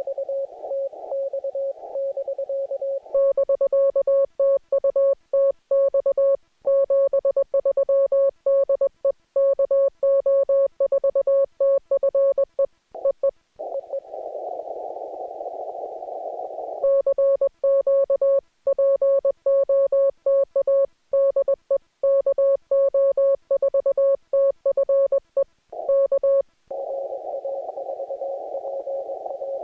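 Morse code (CW) on an amateur radio transceiver: two long runs of a clean, loud keyed tone at about 600 Hz, the operator's own sending heard as sidetone, alternating with the other station's Morse received as a fainter tone in steady band hiss through the narrow CW filter at the start, in the middle and near the end.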